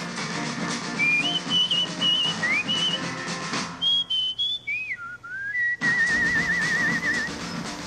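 A person whistling a tune over a band with drums. The band stops about four seconds in, leaving the whistle alone, then comes back in under a long wavering whistled note.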